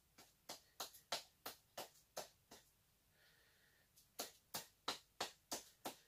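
A run of sharp knocks, about three a second, then a pause of about a second and a half and another run. The sound comes from a small silicone mould being knocked to work a cured epoxy resin casting loose from it.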